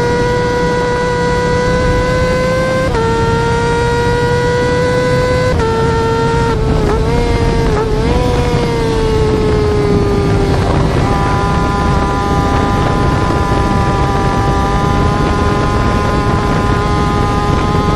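Yamaha R6 inline-four sport-bike engine held at high revs, a steady high-pitched whine. Its pitch drops in small steps twice, wavers unsteadily around seven to eight seconds in, sags lower, then slowly climbs again near the end.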